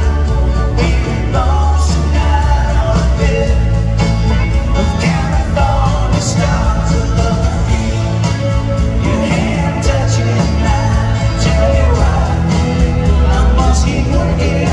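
Live rock band playing, heard from the audience: an electric slide guitar solo with gliding, wavering notes over bass and drums, with a voice singing coming in near the end.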